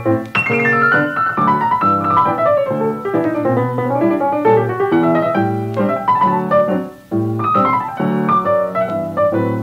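Background piano music, with chords under a melody line.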